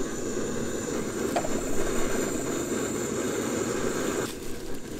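Portable gas camping stove burner running under a pot, a steady rushing noise; near the end its higher hiss drops away.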